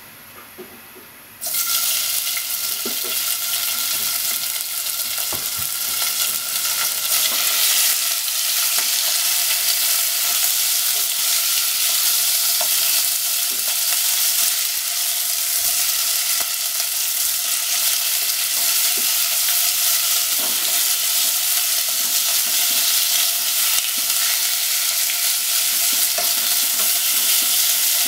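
Sliced pork sizzling and frying in hot oil in a nonstick pot while it is stirred with wooden chopsticks; the sizzle starts suddenly about a second and a half in.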